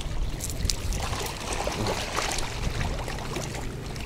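Metal wire-mesh keepnet rattling and rustling as a large crucian carp is forced through its narrow opening. There are a few light clicks in the first second.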